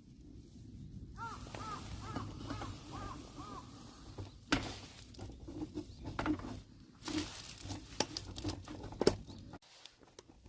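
A bird calling in a quick run of about six short, arching notes, followed by scattered sharp clicks and knocks, the loudest about halfway through and again near the end.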